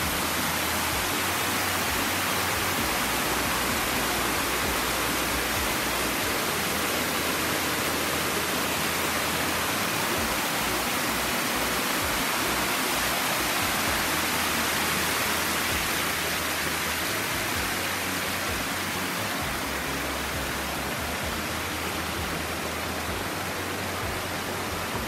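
Small mountain waterfall cascading over rocks into a pool, a steady rushing of water.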